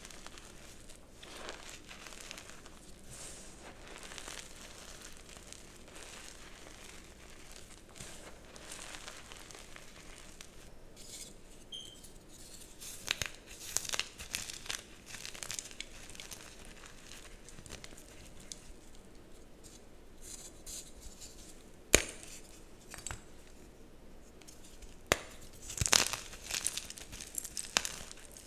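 Dyed gym chalk blocks being crumbled and crushed: soft, continuous crumbling at first, then sharper crunches and cracks as pieces break, with one loud snap about two-thirds of the way through and a burst of cracks near the end.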